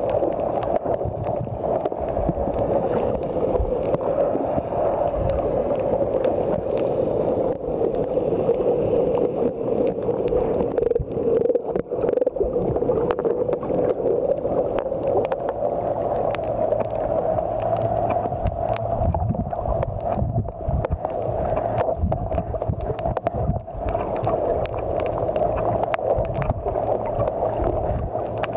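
Muffled underwater sound picked up by a submerged camera: a steady rushing hum of water with gurgling and irregular low thumps.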